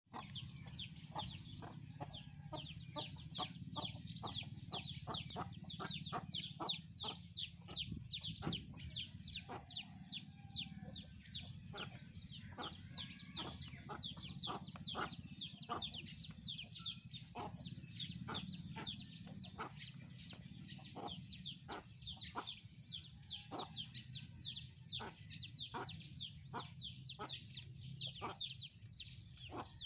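Small birds chirping without pause, a dense run of high, falling chirps several a second, over a steady low hum.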